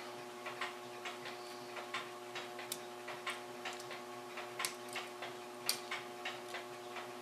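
A clock ticking steadily, a light tick a little under twice a second, over a faint steady hum.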